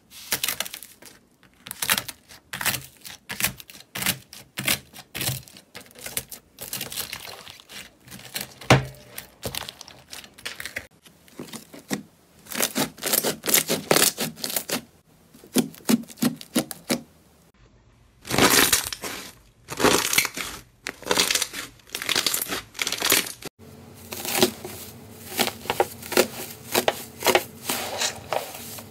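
Slime being pressed, squeezed and kneaded by hand: quick runs of small crackling pops and squelches from air pockets bursting in the slime. The sound changes in texture every few seconds as one slime gives way to the next, with a short pause just before the last third.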